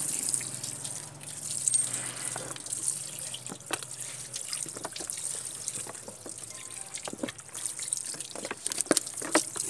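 Water poured from a plastic bottle splashing and dripping onto the metal timing gears and block of a Toyota 2C diesel engine, rinsing them clean, with irregular splashes and drips throughout.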